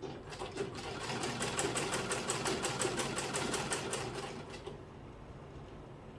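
Sewing machine stitching a zip onto fabric in one run of fast, even stitches lasting about four and a half seconds, then stopping.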